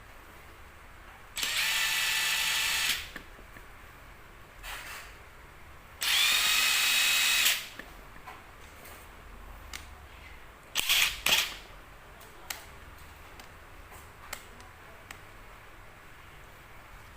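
Makita DTW1001 18V cordless 3/4-inch impact wrench running in two bursts of about a second and a half each, with a steady high whine, then two brief blips of the trigger a few seconds later.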